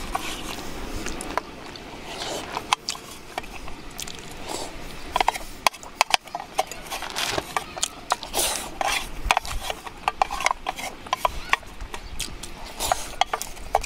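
A wooden spoon scraping and clicking against a metal mess tin as food is scooped up and eaten: an irregular run of sharp clicks and scrapes, busiest in the second half.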